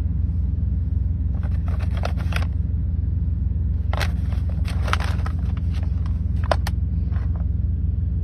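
Brown paper bag crinkling and crackling a few times as a cat shifts inside it and a hand touches it, over a steady low engine rumble.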